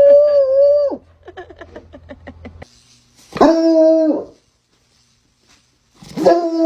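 A dog howling: a long, steady howl that ends about a second in, then a shorter howl in the middle and another starting near the end, with a run of faint short sounds between the first two.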